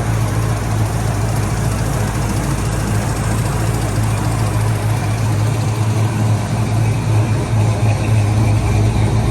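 1972 Chevelle SS V8, newly fitted with Holley Sniper EFI throttle-body fuel injection, idling steadily.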